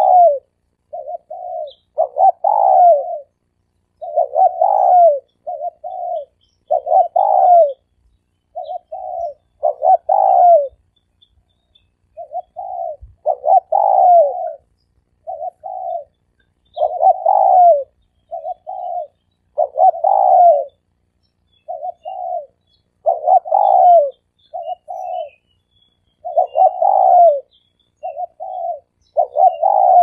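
Spotted dove cooing: a phrase of short coos followed by a louder, longer coo, repeated evenly about every three seconds. It is a dove-call recording made for luring doves.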